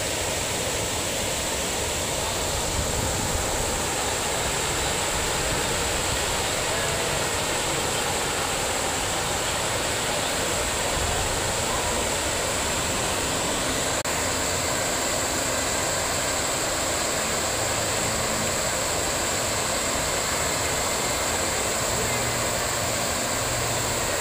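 Large fountain's water pouring and splashing in a steady, unbroken rush.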